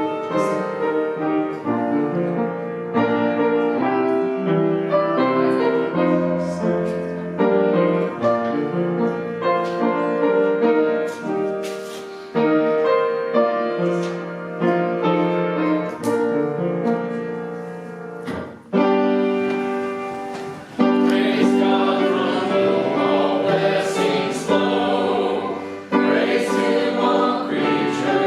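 Church offertory music: piano playing a slow hymn-like piece, with voices singing more fully from about twenty seconds in.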